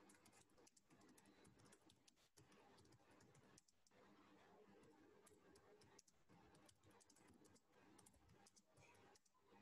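Faint typing on a computer keyboard: an irregular run of quick key clicks as a sentence is typed.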